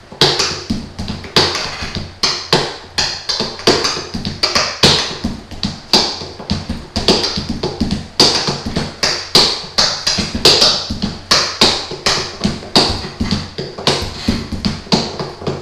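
Fingers and knuckles drumming a freestyle groove on the armrests of an armchair: a quick, even rhythm of several taps and knocks a second, bright clicks mixed with deeper thumps.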